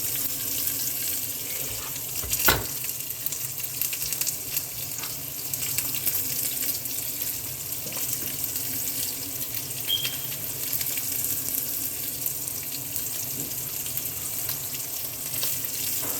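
Browned meat and garlic sizzling in a frying pan, a steady crackling hiss, with one sharp knock about two and a half seconds in.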